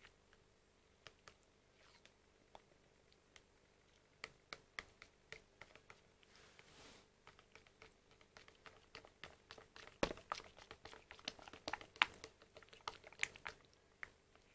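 A metal spoon stirring thick cream yogurt in a plastic cup: irregular light clicks and scrapes of the spoon against the cup, coming faster in the second half.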